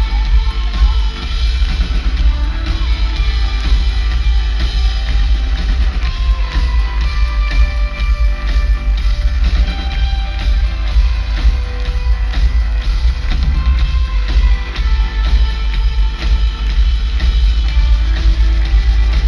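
Rock band playing live in concert: a drum kit keeping a steady beat, with guitars and a singer, heard loud with a heavy, booming bass.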